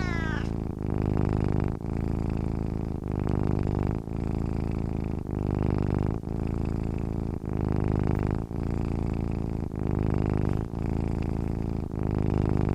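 A cat purring steadily, the purr swelling and dipping with each breath about once a second. A short meow overlaps the very start.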